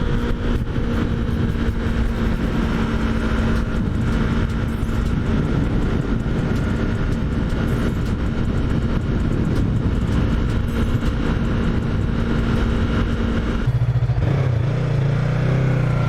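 Yamaha MT-03's parallel-twin engine running at steady speed under way, with wind rush. About fourteen seconds in the engine note drops suddenly to a lower pitch.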